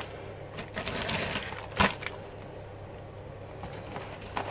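Paper napkin rustling and crinkling as it is gathered by hand and a rubber band is stretched and wound around it, with a few sharp clicks, the loudest a little under two seconds in. A faint steady low hum underneath.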